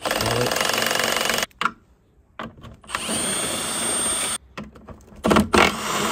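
Milwaukee M12 Fuel cordless driver spinning out 10 mm bolts, running in three bursts of a second or so each with short pauses between; the last burst is louder and rougher.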